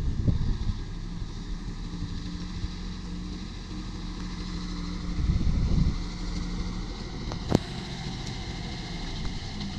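Diesel engine of heavy earthmoving machinery running steadily near idle. It swells briefly a little past the middle, and a single sharp knock comes about three-quarters of the way through.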